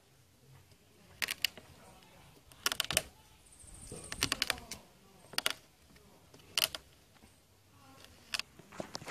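Kitchen knife chopping on a wooden cutting board: sharp knocks of the blade on the wood, some single and some in quick little runs, coming irregularly about once a second.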